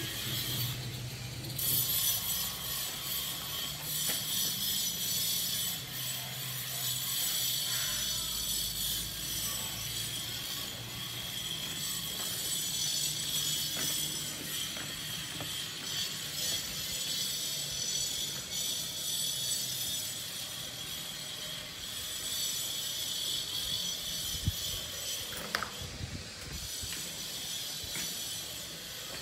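Steady, high-pitched rattling drone of insects, with a couple of short knocks near the end.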